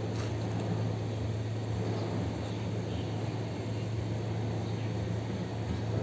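A steady low mechanical hum with a rushing noise over it, unchanging throughout, and a few faint light clicks.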